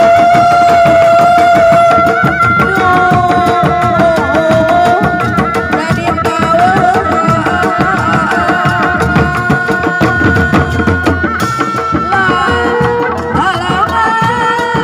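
Live Sundanese traditional music: kendang hand drums beaten in a fast, dense rhythm, under a loud melody line that holds long notes at first and then wavers and moves.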